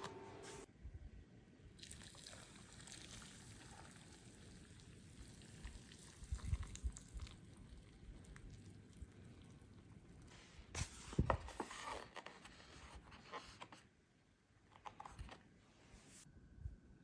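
Water poured into a paper cup of instant ramen, a faint hiss, with a few knocks and crinkles from handling the cup about six and eleven seconds in.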